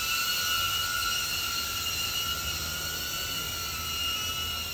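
DJI Avata drone hovering, its guarded propellers giving a steady high whine over a hiss of rushing air, on a test flight after its fractured arm was glued and stitched.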